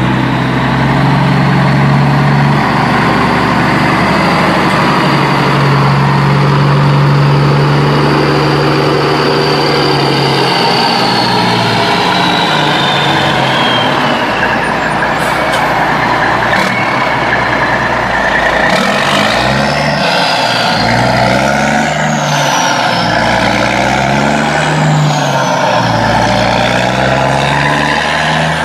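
Heavy truck engine sound, running steadily and then revving up and down several times in the second half.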